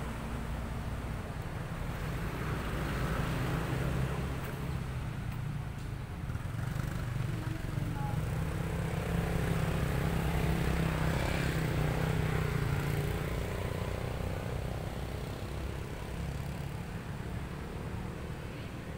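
Low, steady rumble of a motor vehicle's engine, swelling to its loudest a little past the middle and then fading.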